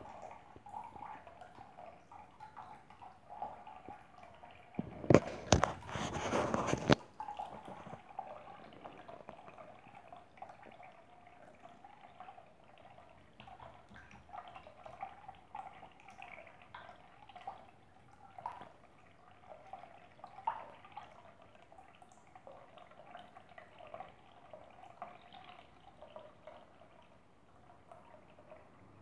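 Thin stream of water from a bidet tap trickling into a partly filled bowl, with a steady patter of small drips and plinks. About five seconds in there is a loud noisy burst lasting about two seconds.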